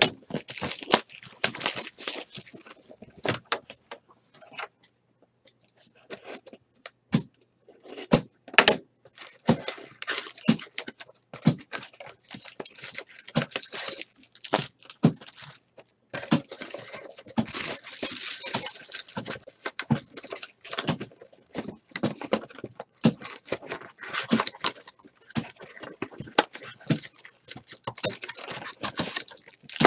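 Bowman's Best cardboard card box torn open by hand, and its wrapped trading-card packs rustling and crinkling as they are pulled out and laid down: a string of sharp clicks and crackles, with thicker crinkling about halfway through and again near the end.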